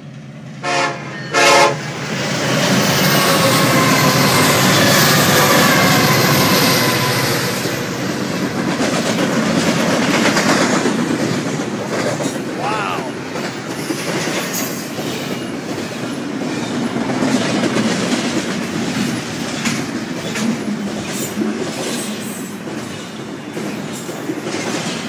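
Freight train passing at high speed: two short horn blasts about a second in, then the locomotives rush past and the cars run by with steady wheel clatter.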